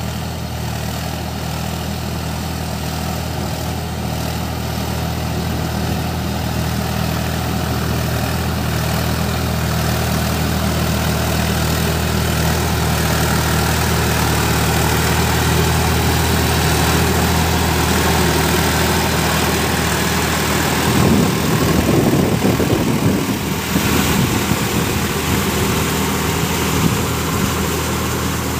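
Sonalika tractor's diesel engine running steadily under load as it drives a Shaktiman rotavator puddling a flooded paddy field, a continuous low engine hum. About three-quarters of the way through, a few seconds of rougher, uneven noise rise over the engine.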